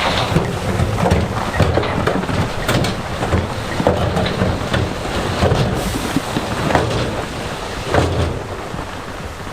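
A crawler bulldozer's diesel engine working under load as it pushes loose stone, the rocks grinding and clattering with many short knocks over a low rumble.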